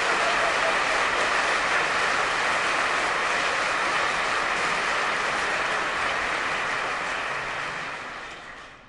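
Audience applause, steady and then dying away over the last two seconds.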